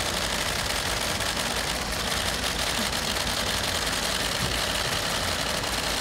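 Van engine idling steadily.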